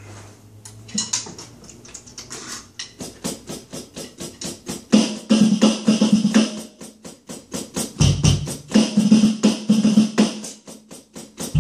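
Roland V-Drums electronic drum kit being played: fast, even stick strokes on the pads and cymbals, with heavier, lower drum hits coming in about five seconds in and again near eight seconds.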